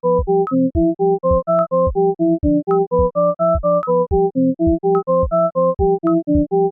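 Background music: a synthesizer keyboard plays a bouncy melody of short notes over a steady beat of about two thuds a second.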